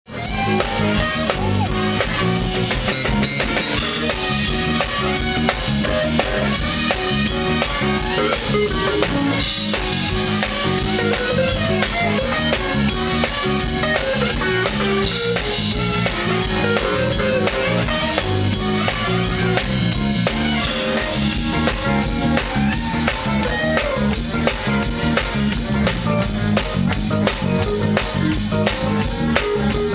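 Live blues band playing, with a steady drum-kit beat of kick, snare and rimshots under electric guitars.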